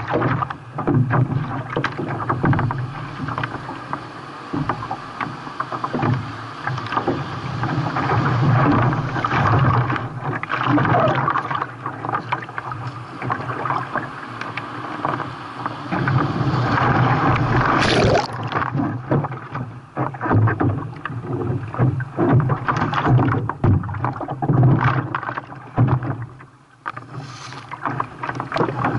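Seawater rushing and splashing around a kayak playing in waves, with repeated short splashes of paddle strokes and breaking water. The sound surges up and down throughout, with a brief lull near the end.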